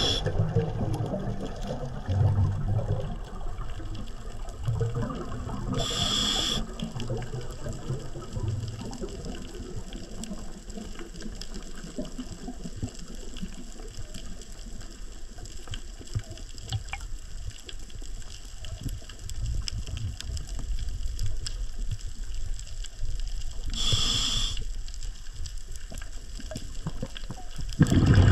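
Scuba diver breathing underwater through a regulator: two short hissing inhalations, a few seconds in and again near the end, with rumbling, gurgling exhaled bubbles between them.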